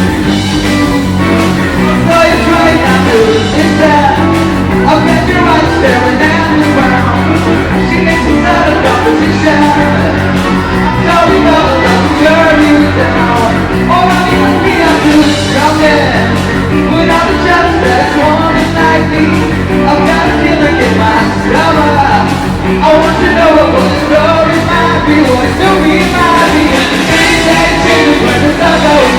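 Loud rock music from a band with electric guitar, playing steadily throughout, with singing at times.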